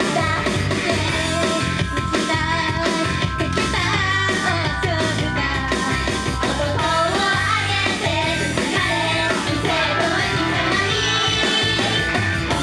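Upbeat Japanese idol pop song sung live by a female idol group over a rock-style band backing with a steady beat.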